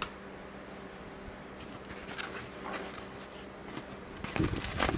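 Cardboard shipping box being opened by hand, its flaps scraping and rustling faintly. About four seconds in, louder, steady crinkling and rustling of packaging starts as the contents are handled.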